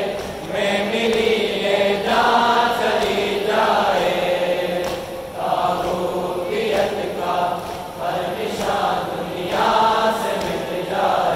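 Men's voices chanting a noha, an Urdu Shia mourning lament, in a steady run of sung phrases with short breaks between them.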